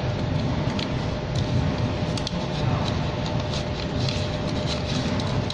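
Steady mechanical hum with a faint thin steady tone, and scattered light clicks and rustles as the label web is threaded through the labeling machine's rollers.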